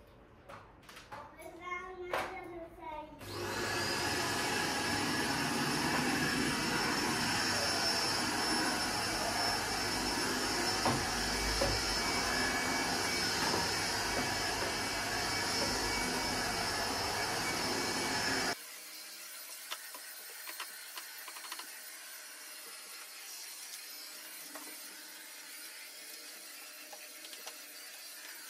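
Vacuum cleaner switching on about three seconds in with a brief rising whine, then running steadily as it is pushed across the kitchen floor. It cuts off sharply about 18 seconds in, leaving only a faint steady hiss.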